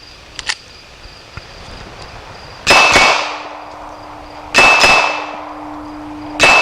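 Glock 42 pistol firing .380 cast-lead bullets in three quick double taps, each pair of shots about two seconds after the last, with a brief ringing tone after each pair.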